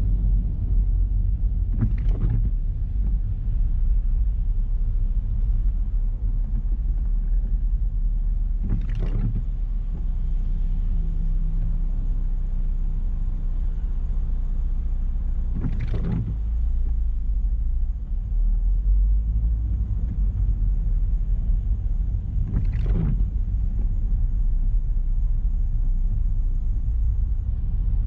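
Steady low rumble of a car's engine and tyres heard from inside the cabin, with a windshield wiper sweep about every seven seconds, four times, on an intermittent setting in the rain.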